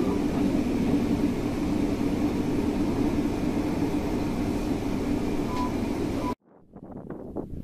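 Diesel railcar running on the line, heard from the front of the cab: a steady engine and running-gear drone with a low hum. About six seconds in, the sound cuts off abruptly, and faint wind buffeting on the microphone follows.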